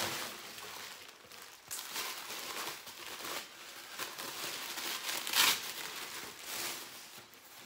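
White tissue paper rustling and crinkling as a gift is unwrapped by hand, with a louder crinkle about five and a half seconds in.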